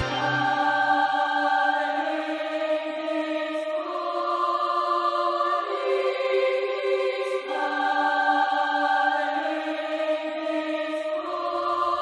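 Background music with no beat: slow, sustained chords that change every two seconds or so, and a low bass coming back in near the end.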